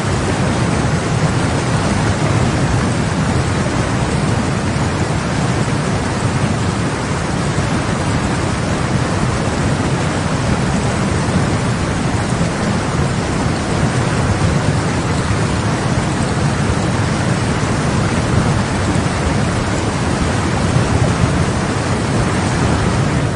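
Muddy floodwater rushing down a river channel in churning standing waves, a steady, loud roar of water.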